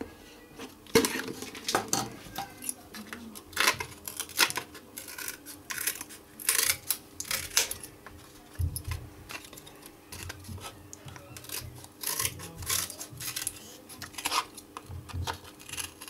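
Scissors snipping a thin strip of wood veneer, an irregular series of crisp cuts as its end is trimmed round, with light handling knocks on the workbench in between.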